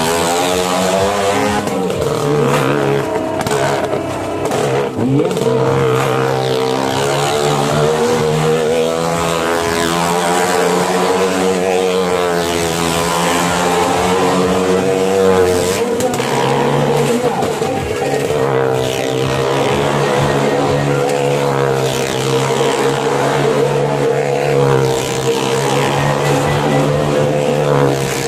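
Motorcycle engine running hard as it laps the vertical wooden wall of a well-of-death drum. Its pitch swings up and down in a steady rhythm with each circuit.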